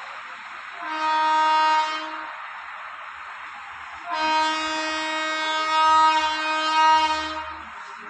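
Train horn sounding twice at a level crossing: a short blast about a second in, then a longer blast lasting about three and a half seconds, over a steady rushing noise.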